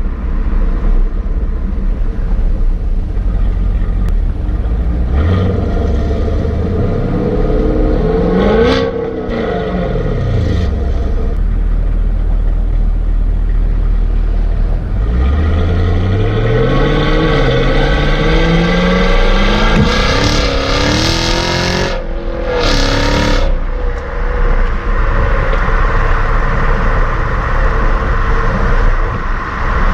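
Stock exhaust of a 2017 Camaro 1SS's 6.2-litre LT1 V8, heard right at the tailpipe while driving. The engine runs steadily, rises then falls in pitch, and settles to a low idle about a third of the way in. Around the middle it pulls away, climbing in pitch in several steps with a drop at each upshift, then settles into a steady cruise with road and wind noise.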